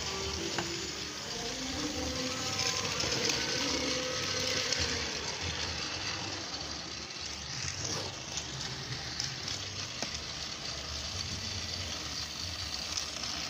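Battery-powered toy train set running on its plastic track: a steady hissing whir from the small motors and wheels, with a few faint pitched tones in the first few seconds.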